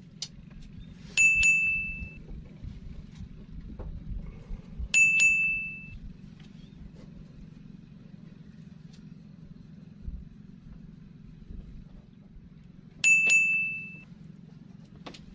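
A clear bell-like ding rings three times, once about a second in, again around five seconds and near the end, each note fading over about a second. A steady low hum continues underneath.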